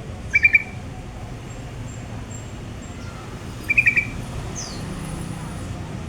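A small bird calling: twice, a quick burst of about four sharp chirps, and between them a thin, high note sliding downward.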